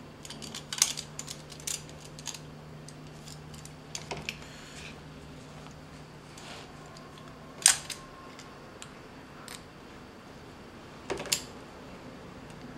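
Utility knife trimming the edge of stitched leather: scattered small clicks and scrapes of blade and hands on the leather and bench, with a few sharper clicks, the loudest about halfway through.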